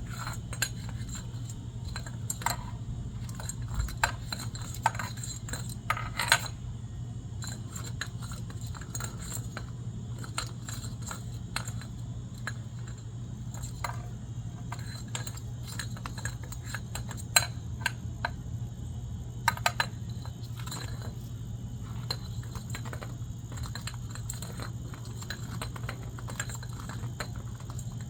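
Wind chime clinking and jangling in irregular bursts as a cockatoo bats and pulls at it, with a steady low hum underneath.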